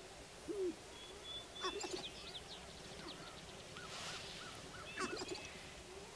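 Sharp-tailed grouse calling on a lek: a short, low hoot about half a second in, then bursts of higher calls about a second and a half in and again near five seconds, with a run of short chirps between them.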